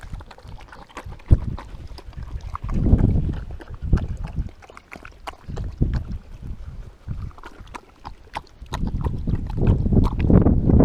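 Dog lapping water from a collapsible bowl: a run of quick, irregular wet clicks. Gusts of wind rumble on the microphone, heaviest about three seconds in and again near the end.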